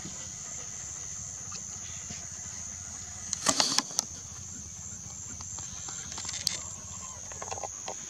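Steady high-pitched insect chirring, like crickets, over a low outdoor rumble, with a brief louder noise about three and a half seconds in.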